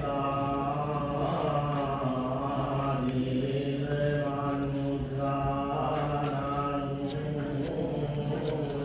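Buddhist chanting: voices intoning a slow, steady chant in phrases of long held notes.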